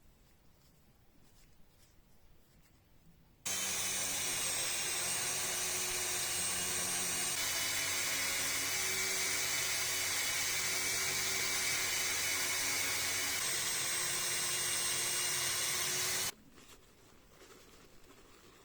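Dremel rotary tool polishing gun metal, running steadily with a high whine that dips slightly in pitch as the pad is pressed on. It switches on about three seconds in and cuts off about three seconds before the end.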